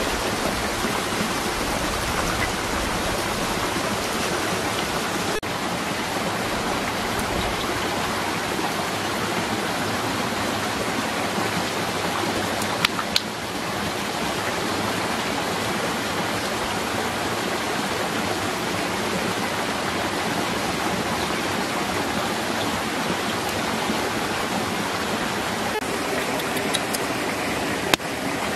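Steady rush of running water, like a stream or small waterfall. Two brief clicks come about halfway, and near the end there is one sharp crack as a watermelon is smashed open on rock.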